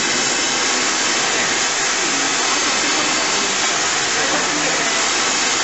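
Oxy-fuel gas welding torch burning against a steel plate: a steady hissing rush of flame and gas.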